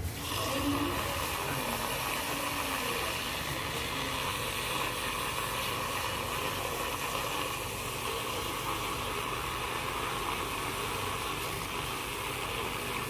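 Small handheld electric mixer running steadily, whipping instant coffee, sugar and hot water for dalgona coffee; it starts and stops abruptly. The mixture is only bubbling and not yet thickening.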